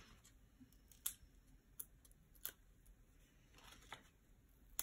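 Near silence with a few faint, short clicks and a soft rustle near the end, from fingers handling small paper card pieces and sticky foam pads.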